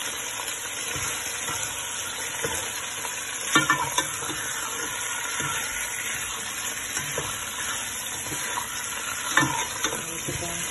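Raw chicken pieces sizzling in hot oil in a pot on a high flame, the water in the meat frying off. A spatula turns the pieces, knocking and scraping against the pot a few times, most sharply about three and a half seconds in and again near the end.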